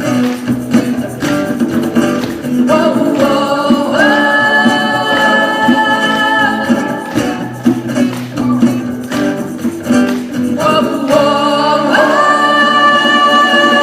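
Live band performing a song with a lead singer, who holds two long notes, one about four seconds in and another near the end.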